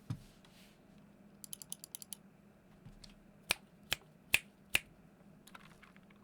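Keystrokes on Gateron optical red linear switches: a quick run of about eight light key presses, then four louder single presses about half a second apart, and a few faint taps near the end.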